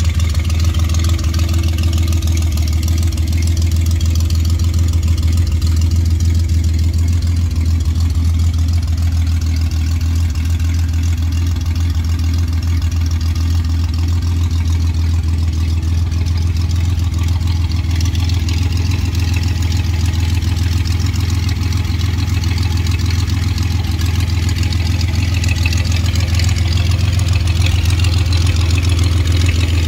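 Homemade trike's 2.8-litre V6 engine idling steadily, with an even low-pitched drone and no revving.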